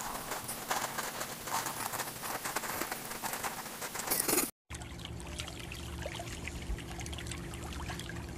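A kitten scratching and digging in cat litter: dense gritty rustling and trickling of the granules, loudest just before it cuts off suddenly about four and a half seconds in. After that comes a quieter stretch of faint ticks over a low hum.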